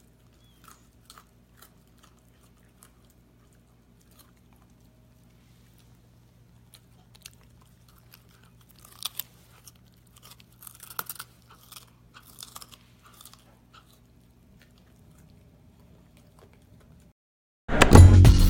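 Bernese Mountain Dog puppy chewing a raw carrot: scattered wet crunches and bites, coming thickest in the middle. Near the end, music starts suddenly and is louder than the chewing.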